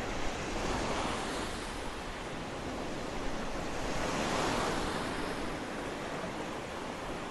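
Rough Black Sea surf in a storm: waves breaking and washing ashore, swelling loudest about a second in and again around the middle.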